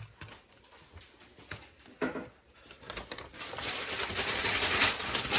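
Unpopped popcorn kernels rattling in a paper bag: a few scattered clicks, then from about three seconds in a dense, rapid rattle that grows louder.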